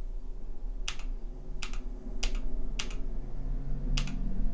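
Keys on a Massdrop Ctrl mechanical keyboard with Halo True switches being pressed: five separate clacks, about half a second to a second apart. These are Fn-key combinations stepping through the RGB lighting patterns.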